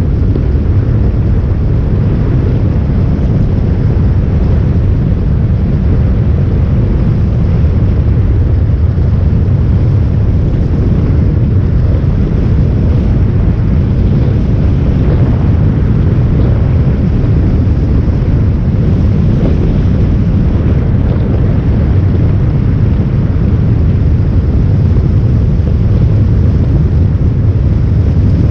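Motorcycle on the move: a steady, loud low rumble of wind buffeting the microphone, with the running engine underneath.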